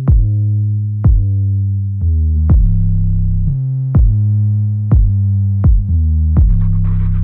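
Electronic background music with a steady drum-machine beat and sustained synthesizer bass notes.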